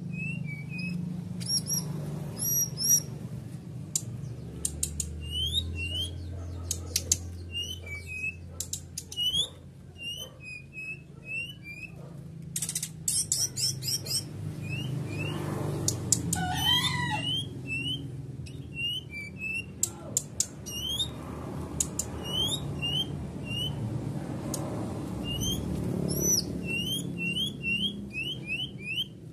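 Brown-chested jungle flycatcher (SRDC) in heightened breeding condition, calling in a rapid run of short, sharp chirping notes, some rising and some falling, with sharp clicks among them. About halfway through comes one longer call that slides down in pitch. A steady low hum runs underneath.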